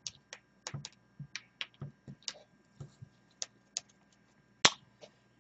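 Irregular light clicks and taps of a GP2Y1010AU0F dust sensor module and its jumper wires being handled, about fifteen in all, the loudest about four and a half seconds in.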